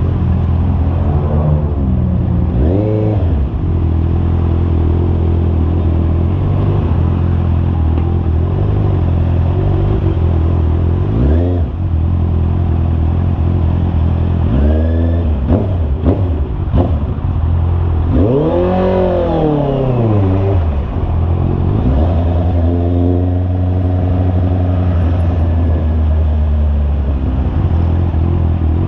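Honda CB650R's inline-four engine running while riding, its note rising and falling several times as it revs and settles. The biggest rev up and back down comes about two-thirds of the way through.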